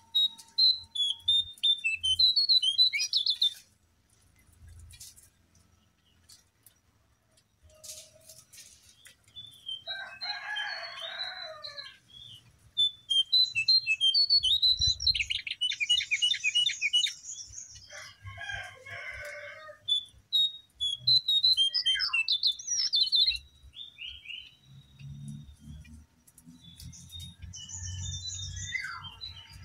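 Cingcoang coklat (jongkangan) singing in bouts of quick high chirping phrases, with a fast rattling trill about halfway through and a few rougher, lower notes between bouts. Short quiet gaps separate the bouts.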